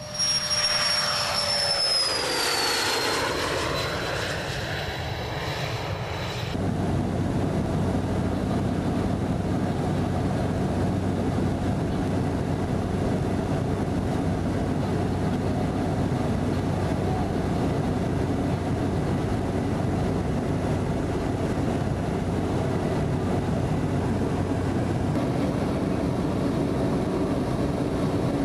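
HondaJet twin-turbofan business jet taking off past the listener, its turbine whine falling in pitch as it goes by. About six and a half seconds in, the sound cuts abruptly to steady aircraft noise with a low drone.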